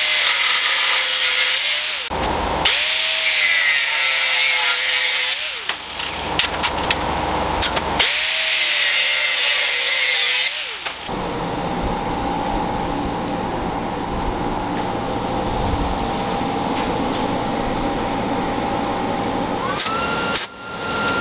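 Electric power tool run three times in bursts of about three seconds, each spinning up with a whine and a harsh hiss and winding down when released. After that comes a steadier, quieter machine hum.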